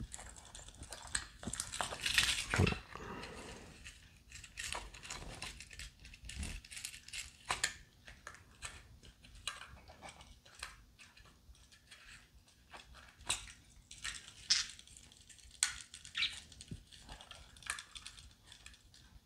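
Light scattered clicks and taps of small parts being handled: guitar potentiometers being fitted one at a time into a pot-spacing plate and set level, with a slightly louder cluster of clicks about two seconds in.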